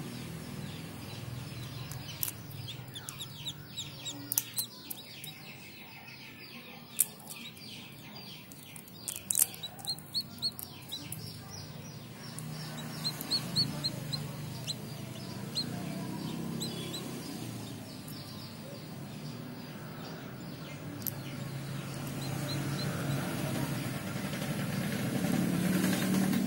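Birds chirping, chickens among them, in quick series of short high calls, thickest in the first half and again near the end, over a low steady rumble; a few sharp clicks fall between the calls.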